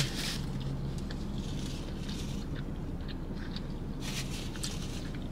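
Soft chewing of fried food, heard as scattered faint clicks, bunched about two and four seconds in, over a faint steady low hum.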